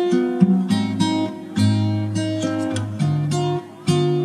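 Background music on acoustic guitar: picked notes and chords ringing out one after another, each fading before the next.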